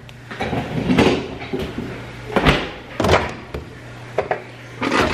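Several brief knocks and scrapes from handling things on a kitchen counter, over a steady low hum.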